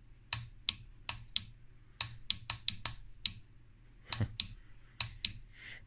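Sharp, irregular clicks, about fifteen in six seconds, as the knobs on a vintage tube oscilloscope's front panel are turned and handled, over a faint steady hum.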